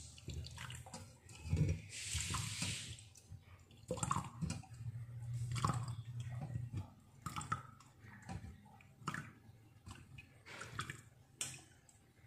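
Warm herbal drink being poured from a pot through a strainer into a glass: a splash of pouring liquid about two seconds in, then trickling and dripping with scattered light knocks of the strainer and glass.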